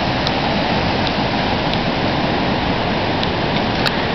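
A river in flood rushing past, a loud steady roar of water, with a few faint clicks.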